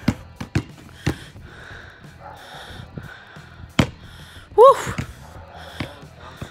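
A basketball bounced three times, about half a second apart, then one loud knock as a shot hits the rim and bounces out, followed by a loud shout of "Woo!" at the near miss.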